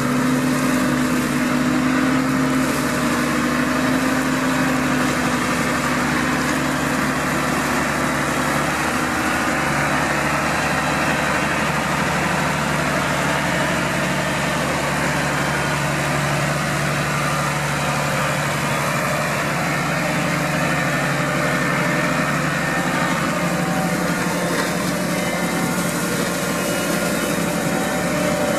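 New Holland TM140 tractor engine running steadily, driving a Shelbourne arm-mounted flail hedge cutter whose spinning flail head mows roadside grass; a continuous machine drone.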